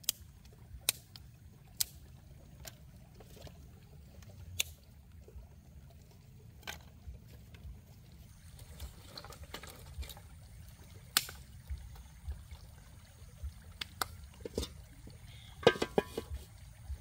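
Shallow stream running over stones, a steady low wash, with scattered sharp clicks throughout and a brief clatter with some ringing near the end.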